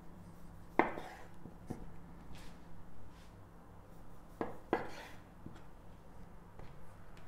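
Chef's knife cutting through soft bread dough and knocking on a bamboo cutting board: a few sharp knocks, the loudest about a second in and a pair a little past the middle, over a low steady hum.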